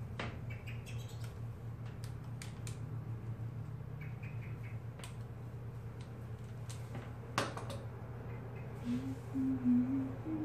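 Quiet handling of a synthetic wig's fringe with a tail comb and hair clips: a scatter of faint clicks and taps, the sharpest about seven seconds in, over a steady low hum.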